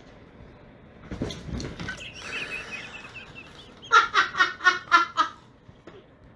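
Siberian husky vocalizing: a wavering whine, then a quick run of about six short, sharp yips about four seconds in.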